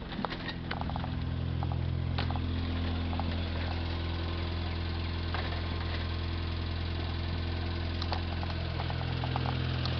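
Ford Festiva's four-cylinder engine idling steadily while it warms up, with a few light clicks in the first couple of seconds.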